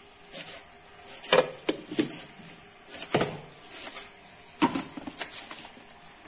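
Irregular knocks and taps of kitchen items being handled and set down on a countertop: a steel mixer-grinder jar and a plastic cutting board.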